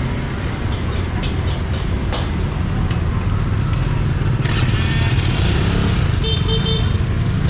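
Steady low rumble of motorbike engines and street traffic, with sharp metallic clicks of tongs against a wire grill rack.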